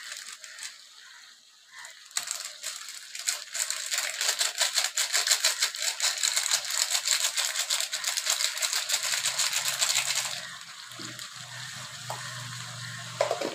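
Chicken pieces frying in oil in a kadai at the kasa stage, a dense, fast crackle that starts about two seconds in and stops abruptly around ten seconds. A faint low hum follows.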